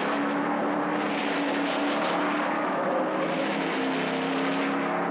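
Racing car engine running hard at speed, a steady note that dips slightly in pitch about midway and rises again near the end.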